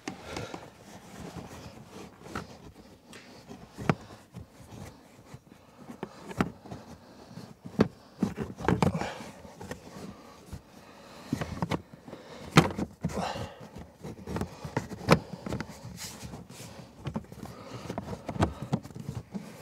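Rustling, scraping and scattered plastic clicks and knocks as a new cabin air filter is bent and pushed into its plastic housing in a Volvo S80 footwell, with the sharpest knocks a little after the middle.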